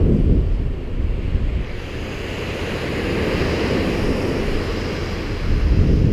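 Ocean surf breaking and washing up the beach, with wind buffeting the microphone in a low rumble; the hiss of the wash swells through the middle.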